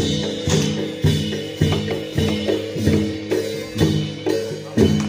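Reog gamelan music: drums and tuned gongs beating a steady pattern about twice a second, with ringing low metallic tones and a high reedy melody line above.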